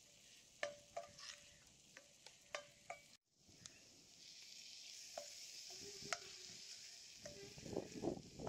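Spatula scraping and tapping in a cast-iron kadai as onions, slit green chilies and spices are stirred over the fire. After a short break, a steady sizzle rises as fresh mint and coriander leaves go into the hot pan, with more stirring scrapes near the end.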